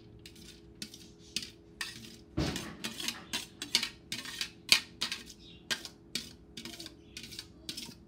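A metal spoon scraping and clinking against a stainless steel colander and pot as cooked basmati rice is scooped out and layered in. The clinks come two or three a second, with one heavier clank about two and a half seconds in.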